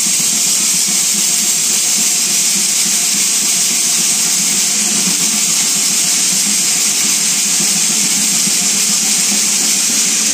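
Stack of galvanised steel test sieves (12.5 mm over 10 mm) shaken by hand with road aggregate inside: the stones rattle continuously against the wire mesh and metal pans. The sieving makes a dense, even, hiss-like rattle that cuts off suddenly at the end.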